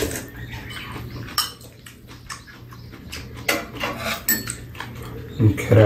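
Spoons and chopsticks clinking against ceramic bowls on a metal tray: a few separate sharp clinks, with a low steady hum underneath.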